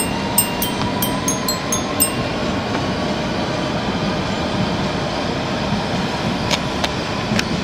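Steady rumble of a passing train, with a faint drawn-out tone running through it.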